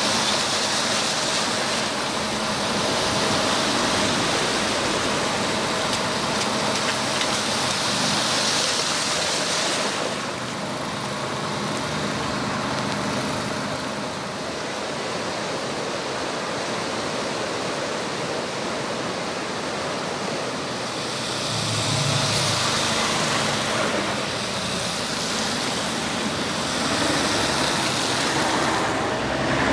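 Heavy rain and rushing floodwater, a steady loud hiss, with vehicles driving through the water on the flooded road.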